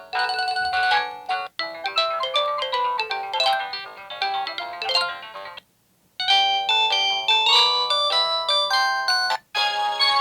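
Samsung Anycall SCH-S140 slide phone playing its built-in 64-polyphony ringtones: bright synthesized melodies of quick notes. The tune breaks off into a brief silence about halfway through and again briefly near the end.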